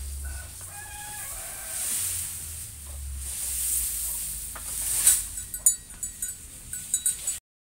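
A bundle of freshly cut grass rustling as it is carried through a cattle shed, with a few short fowl calls early on and a run of sharp knocks and clicks about five seconds in.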